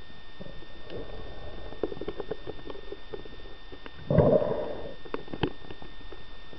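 Underwater sound picked up by a camera in its housing: a steady muffled water rumble with scattered small clicks and knocks, and a louder muffled rush lasting about half a second about four seconds in. A faint steady high whine runs underneath.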